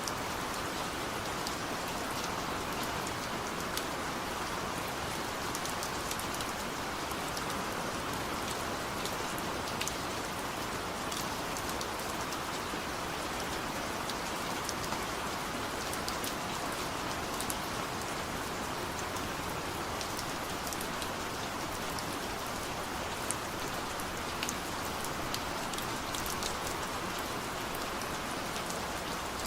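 Steady rain falling on a surface, an even hiss with many individual drops ticking sharply throughout.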